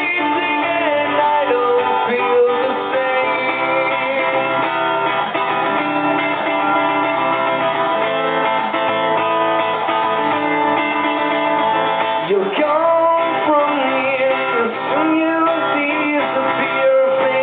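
Live music: a strummed guitar accompanying a voice singing a melody.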